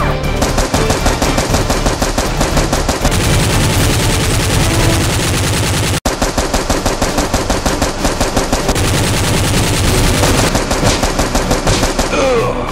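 Rapid automatic gunfire, a dubbed-in machine-gun sound effect standing in for Nerf blasters, firing in long dense bursts. It cuts out suddenly for a split second about six seconds in, then carries on.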